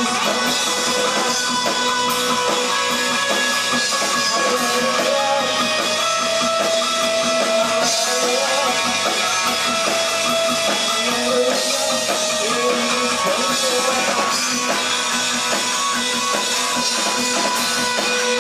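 Rock band playing live, with guitars ringing and strumming over a drum kit.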